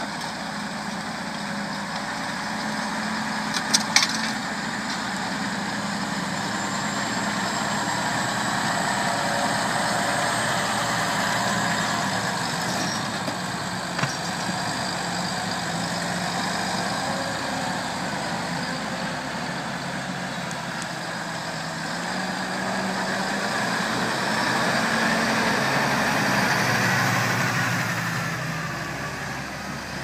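Massey Ferguson tractor engines running under load while pulling reversible ploughs through the soil. The sound swells twice as a tractor comes close and then fades. Sharp clicks come about four seconds in and again around fourteen seconds.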